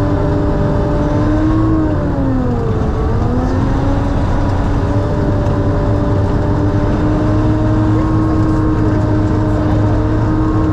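Sherp ATV's diesel engine running at a steady speed while driving, heard from inside the cab; about two seconds in its note dips briefly and then climbs back to the same steady pitch.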